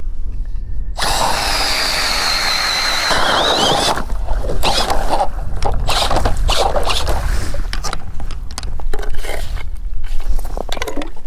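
Power ice auger boring a test hole to check the ice thickness. A steady motor whine lasts about three seconds, then gives way to irregular scraping and crunching of ice.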